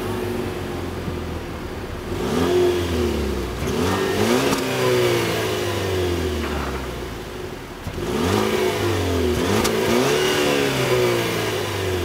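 Exhaust of a 2014 Cadillac ATS's 2.0-litre turbocharged direct-injection four-cylinder, heard at the tailpipes: idling, then revved in two sets of quick blips. The pitch rises and falls with each blip, and the engine drops back to idle between the sets.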